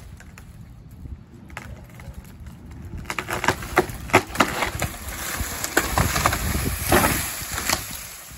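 A tree trunk cracking and splintering as it gives way: a quickening run of sharp cracks from about three seconds in, then the tree crashing down into the grass with a rush of branches, dying away near the end.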